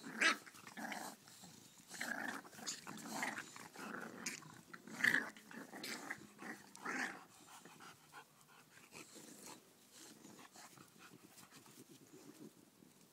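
English bulldogs, puppies and adults, growling in rough play, in a string of short bursts that are loudest near the start and about five seconds in, then die down to quieter scuffling over the last few seconds.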